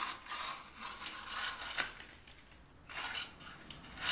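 Scratchy scraping on fresh mortar as lines are scored into it along a straightedge: one long stroke, then a shorter one about three seconds in.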